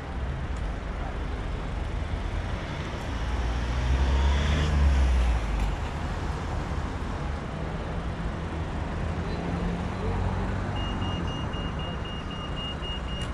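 Traffic and wind rumble heard from a moving bicycle on a city street, swelling louder about four to five seconds in. Near the end a pedestrian crossing signal starts beeping rapidly at one steady high pitch.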